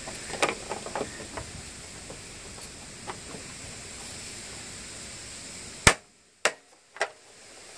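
A few faint taps, then three sharp clicks about half a second apart near the end, as parts of a small engine's shroud and recoil starter are handled and fitted.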